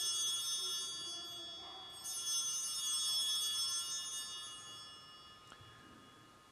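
Altar bells rung at the elevation of the consecrated chalice. An earlier ring is still dying away, then a second bright, many-toned ring comes about two seconds in and fades out over the next few seconds.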